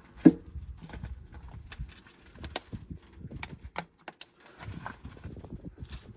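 Knocks and clicks of containers and tools being handled during a car fluid top-up. One sharp knock comes about a quarter of a second in, followed by scattered lighter clicks.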